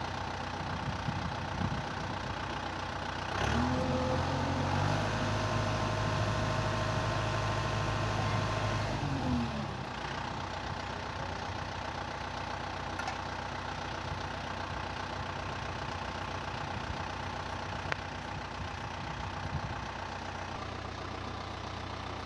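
Tractor engine idling. About three seconds in it speeds up and holds for about six seconds with a steady whine while the hydraulic stake driver for the macrotunnel works, then falls back to idle.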